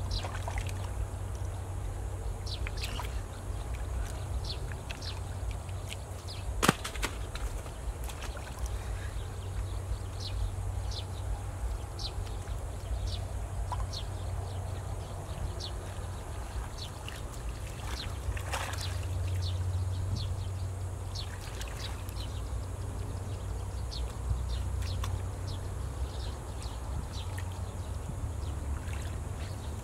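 Shallow canal water sloshing and trickling as stones are pulled by hand out of a small rock dam, with scattered short clicks and one sharp knock of stone about seven seconds in, over a steady low rumble.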